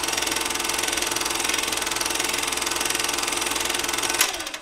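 A machine running with a rapid, even clatter over a low hum, which winds down and stops about four seconds in.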